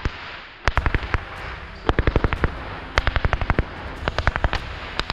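Airsoft gun firing in rapid bursts of several shots each, about one burst a second.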